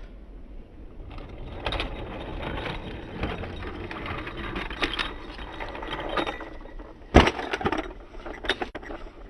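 Brio wooden toy train running along a toy track, clattering steadily with many small clicks, with a few loud sharp clacks about seven seconds in and near the end.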